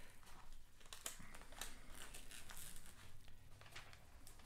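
Clear plastic protective film on a diamond painting canvas crinkling faintly in irregular crackles as it is lifted and pressed back down by hand to push out trapped air.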